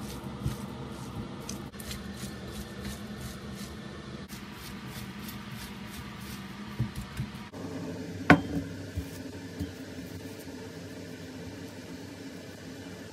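Soft squishing and small clicks of food being handled in a kitchen over a low steady hum, with one sharp knock about eight seconds in.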